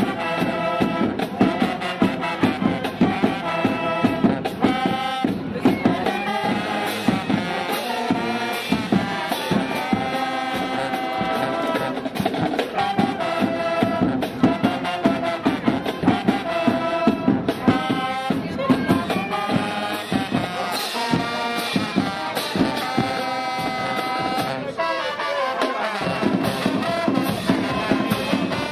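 Marching band playing: brass horns carry a melody over a steady drumline beat of snare and bass drums.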